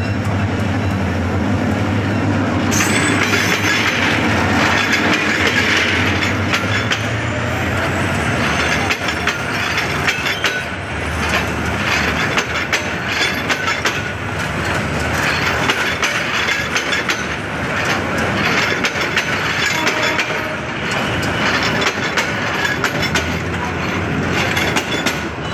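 A diesel locomotive passes close with a steady low engine drone, which fades after about eight seconds. A long rake of passenger coaches follows, rolling past with continuous clickety-clack of wheels over the rail joints.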